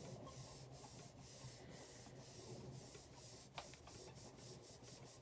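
A small handheld pad rubbed back and forth over a stamp in a stamping platform. The soft rubbing strokes come about twice a second.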